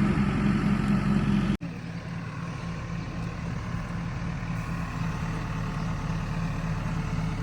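JCB 3DX backhoe loader's diesel engine running steadily. About a second and a half in, the sound breaks off for an instant and then carries on a little quieter.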